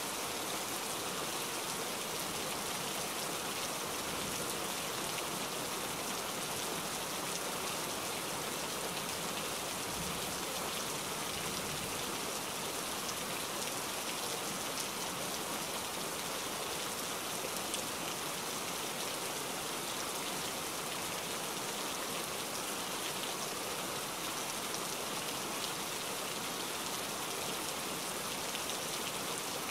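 Steady hiss of rain, even and unchanging throughout.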